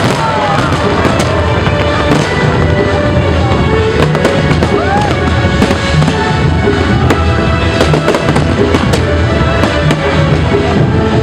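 Fireworks going off without a break, a dense run of bangs and crackling, with music playing underneath.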